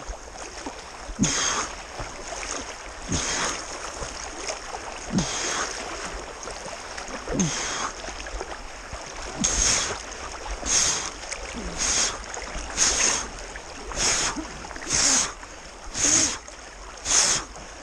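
Swimming strokes splashing in a river current, more and more regular, about one a second in the second half, over the steady rush of flowing water.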